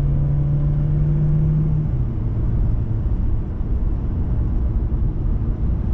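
Steady low rumble of a car on the move, with a steady low drone that stops about two seconds in.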